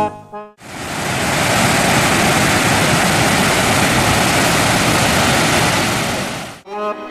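Water spilling over a stone cascade into a pond: a steady rushing splash that fades in about half a second in and stops suddenly shortly before the end.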